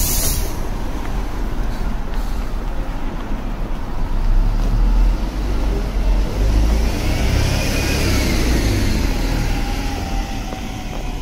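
Road traffic on a city street, engines running close by, with a heavy low rumble as a large vehicle passes about four to nine seconds in, its whine rising then falling. A sharp hiss cuts off in the first half second.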